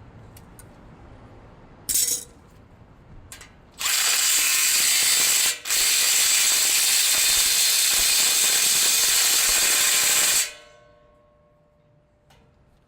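Power drill running with a rapid ratcheting rattle: a short burst, then a long run of about six seconds with one brief break, before it winds down and fades.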